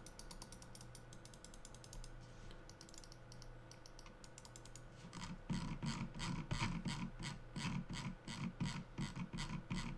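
Logitech G502 Hero gaming mouse clicking and ticking under the hand. Faint quick ticks come first, then from about halfway there are louder regular clicks, a few a second.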